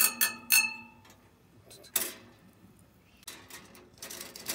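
Wire grill net clinking against the steel top of a wood stove: a few sharp metallic clicks with a brief ring in the first half second, and one more click about two seconds in. Near the end comes a looser clatter as a heavy porous stone plate is set down on the grill.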